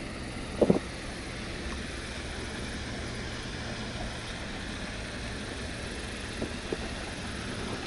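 Steady wind buffeting on the microphone, with a short loud thump under a second in.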